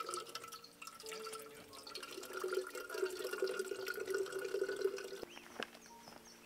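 Spring water running from a pipe spout into a copper bottle being filled, a steady gurgling stream with a ringing tone from the bottle, cutting off abruptly about five seconds in.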